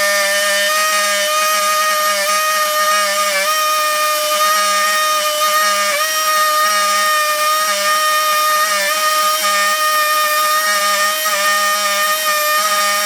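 Electric power tool cutting wood, running at a steady high whine that sags briefly every two to three seconds as it takes load.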